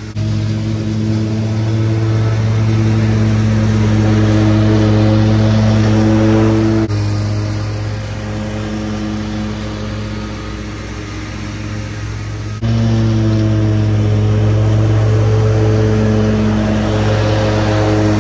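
Ferris ISX 800 zero-turn mower's EFI Kawasaki engine running steadily at mowing speed as the mower drives across the lawn. The level drops suddenly about seven seconds in and jumps back up suddenly near thirteen seconds.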